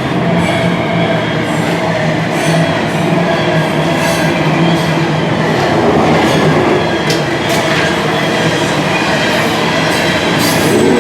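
Train passing overhead, heard from the tunnel beneath the tracks: a steady, loud rumble with scattered short clacks.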